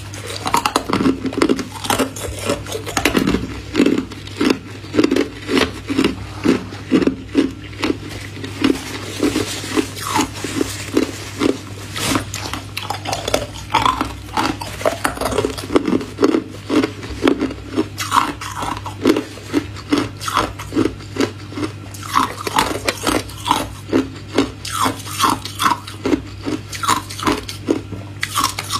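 Hard ice cubes being bitten and chewed, a steady run of crisp crunches at about two a second, over a faint steady low hum.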